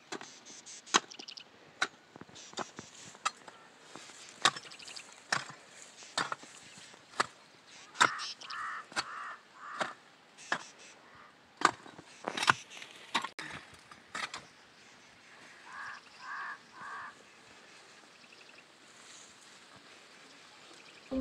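Repeated sharp chopping strikes of a hand tool, roughly one a second and uneven in strength. Twice, a bird calls in a short run of notes.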